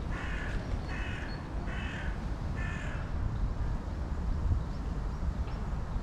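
A crow cawing four times in about three seconds, harsh evenly spaced calls, over a steady low rumble.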